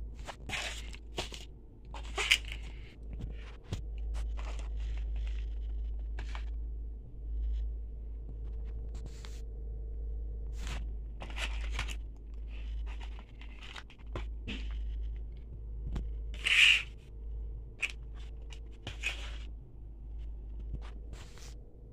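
Paper food wrappers and packaging rustling and crinkling as they are handled, in scattered short bursts, the loudest a sharp crinkle about two seconds in and another later on, over a low steady hum.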